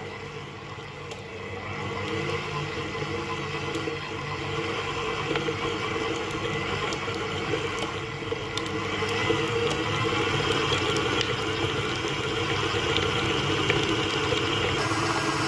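Stand mixer motor running steadily while its flat beater creams butter and powdered sugar in a steel bowl. The run grows louder partway through as the mixer is turned up to a higher speed.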